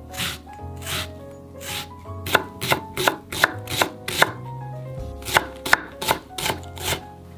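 Seki Magoroku Akane chef's knife chopping green onion on a bamboo cutting board. A few spaced cuts through the stalk give way to two quick runs of chops, about five a second, as the onion is minced finer.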